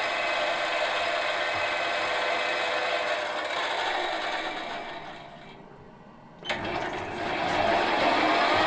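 Metal lathe running while a centre drill in the tailstock cuts into the centre of a spinning flywheel blank. The running sound fades away about two-thirds of the way through. A sharp click follows, then the running sound returns and rises in pitch near the end.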